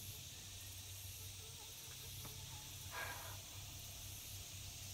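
Faint steady high-pitched hiss of insects buzzing in summer heat, over a low steady rumble, with one brief soft rustle about three seconds in.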